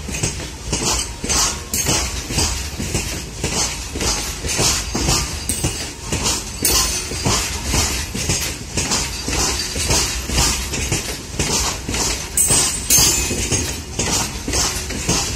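Open-top freight wagons rolling past, steel wheels clacking over rail joints at about two clacks a second over a steady low rumble.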